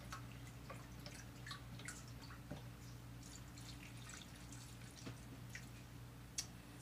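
Chicken broth poured from a carton into a small measuring cup and then onto turkey pieces in a wok: faint scattered drips and trickles over a steady low hum.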